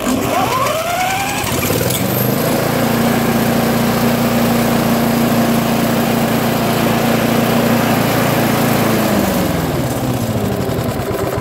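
Briggs and Stratton single-cylinder lawnmower engine starting and running, now that the shorted metal spark plug cap has been removed and spark restored. It catches at once and revs up, runs at a steady speed, then slows with its pitch falling near the end.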